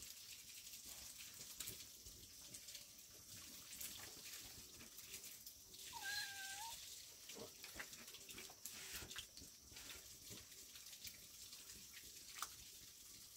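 A single short, high-pitched animal call about halfway through, bending up slightly at its end, over faint scattered clicks in an otherwise near-silent background.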